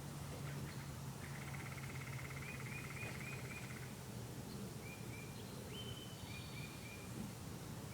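Songbirds calling: runs of short, repeated high chirps and a rapid trill, over a faint, steady low hum.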